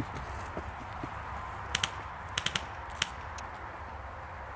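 Airsoft gunfire: short, sharp snaps, two close together a little under two seconds in, then a quick run of three, then one more about three seconds in.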